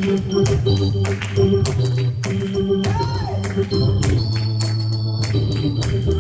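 Worship music: an organ holding sustained chords over a steady beat of percussive hits.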